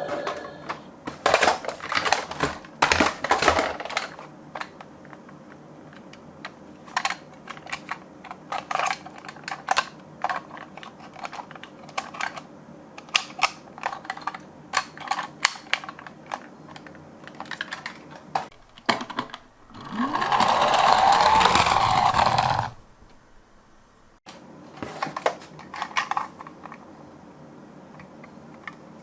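Irregular small clicks and knocks of die-cast toy minicars being handled and set down on a slope. Later comes one louder rushing, whirring sound lasting a couple of seconds that cuts off suddenly, as of a toy car rolling, followed by a few more clicks.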